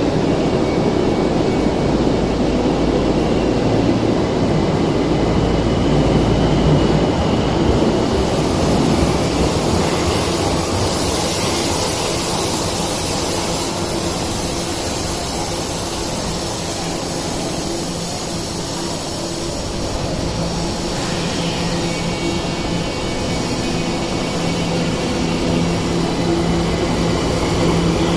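Tokyo Metro Ginza Line subway train moving along an underground platform: a steady electric motor whine over wheel-on-rail rumble, with the whine tones strongest near the start and again in the last few seconds.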